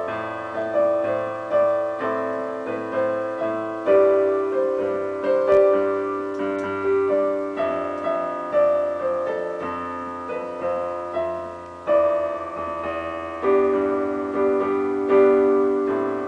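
Digital piano played slowly: a melody over sustained chords, each note struck and then decaying. It ends on a last chord about fifteen seconds in that is left to ring and fade out.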